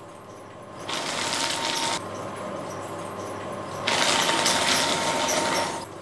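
Office paper shredder running in two bursts as paper is fed into it, a short burst of about a second and then a longer one of about two seconds.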